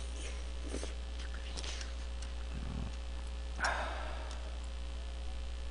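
Eating sounds from a man eating jjajang noodles with a fork: a few faint clicks and a short, louder mouth noise about three and a half seconds in, over a steady low electrical hum.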